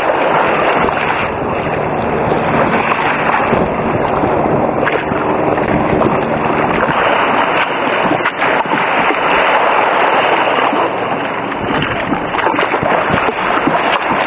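Sea water splashing and sloshing against a sea kayak's hull as it is paddled through slightly choppy sea, with the paddle blades splashing into the water.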